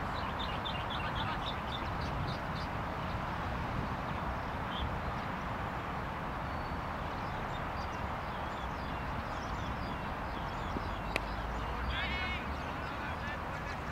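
Open-air background with a steady low rumble, and short high bird chirps in quick succession near the start. About eleven seconds in comes a single sharp crack, a cricket bat striking the ball, followed by a brief high call.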